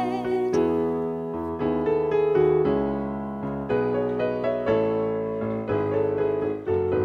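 Piano accompaniment to a children's song playing on its own, with no singing: a steady run of struck chords and melody notes, a new one every half second to a second.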